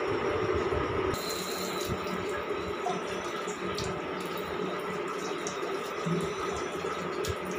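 Tap water running into a bathroom sink basin, splashing as a child scoops it up to wash his face.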